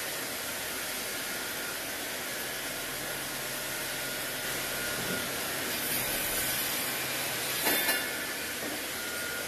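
Automatic miter saw line running, a steady machine hiss with a low hum from about two and a half to seven and a half seconds in. A short, loud burst of noise comes about a second and a half before the end.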